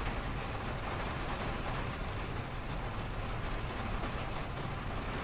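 Steady rain pattering on a window pane, with now and then a sharp drop tick, over a constant low rumble of freeway traffic.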